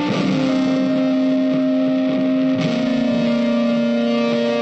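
Background music with held, sustained notes, changing chord about half a second in and again a little past halfway.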